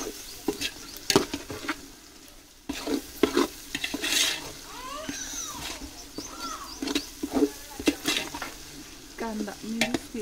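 Metal slotted ladle stirring frying onions in a large aluminium pot, with repeated knocks and scrapes of metal on metal over a low sizzle.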